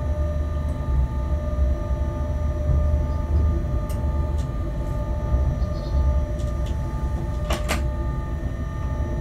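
Inside a locomotive cab as the loco rolls slowly along the track: a steady low rumble with a constant hum of several whining tones. A few sharp clicks or knocks come through, the strongest a double knock about three quarters of the way through.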